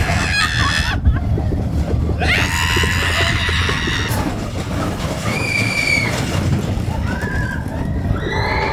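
Expedition Everest roller coaster train rumbling along its track at speed, with riders screaming and yelling over it several times.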